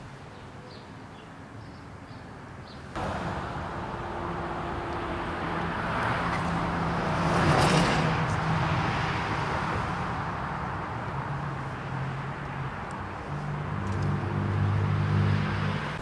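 Outdoor noise with a car passing on a nearby road: it comes in suddenly about three seconds in, swells to a peak about halfway through, then fades, and a low engine drone rises again near the end.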